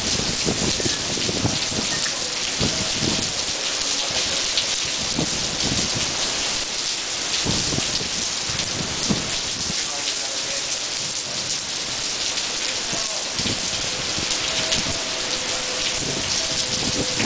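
Torrential rain from a supercell's downburst, a dense steady hiss of rain pouring onto paving and stonework, broken by irregular low thumps.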